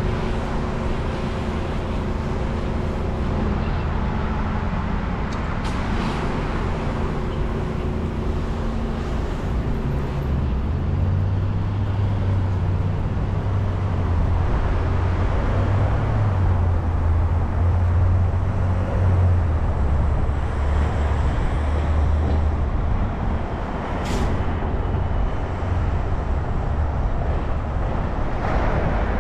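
Steady city street traffic. A large vehicle's engine runs close by with a low hum through the middle, and a short hiss comes near the end.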